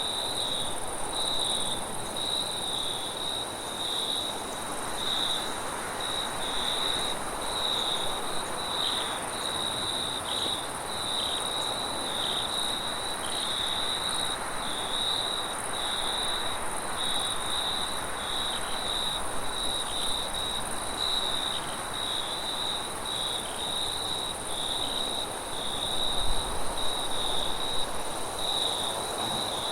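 Insect chorus: a cricket chirping in even pulses about twice a second over a steady high-pitched drone of other insects and a soft hiss. A few low bumps near the end.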